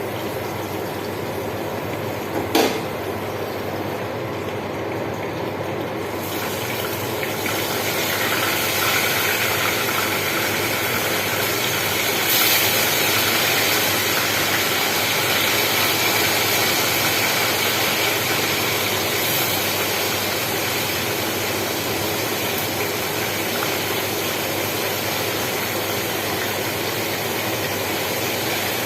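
Food sizzling in hot oil in a pan, growing louder and fuller about seven seconds in. A single sharp knock about two and a half seconds in.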